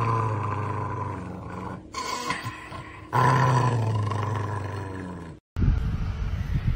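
Dog growling with bared teeth in two long growls, each starting loud and fading away, while its head is patted.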